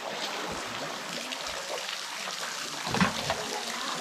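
Lake water splashing and trickling around a kayak, with a louder splash about three seconds in.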